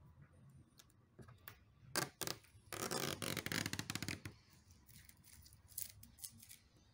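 Old adhesive tape and foil being scraped off an iMac's screen frame: two sharp scratches about two seconds in, a dense rasping scrape lasting about a second and a half, then a few shorter scratches.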